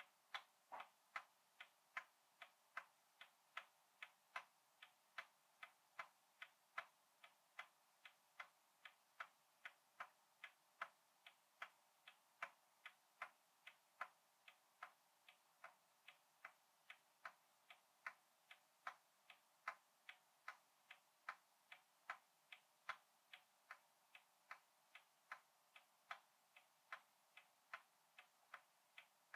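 Faint, steady tick-tock of an antique pendulum clock, about a hundred years old, ticking a little over twice a second.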